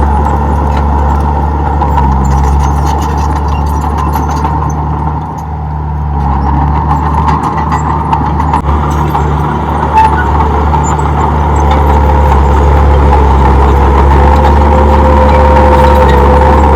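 Komatsu D31P bulldozer's diesel engine running steadily under work, with a steady whine over the low engine hum; it eases briefly about five seconds in and grows louder again in the second half.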